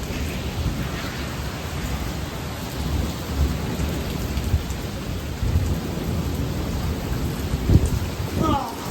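Torrential rain pouring down in a thunderstorm, with a heavy low rumble throughout and a stronger low thump near the end.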